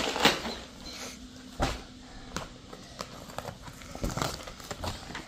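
Books and school things being handled and packed into a school bag: scattered soft knocks and rustles, with a dull thump about a second and a half in.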